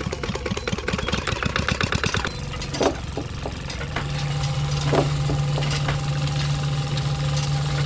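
Miniature model machinery running. A rapid, even, engine-like knocking lasts about two seconds, then the steady hum of a small DC electric motor takes over and grows louder about four seconds in, with two short sharp knocks.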